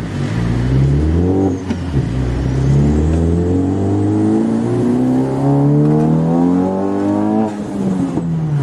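Honda Civic Type R FK8's tuned turbocharged 2.0-litre four-cylinder accelerating hard, the engine note climbing steadily through the revs with a faint high turbo whistle rising with it, after a short dip and pickup about a second and a half in. Near the end the throttle comes off and the engine pitch falls away.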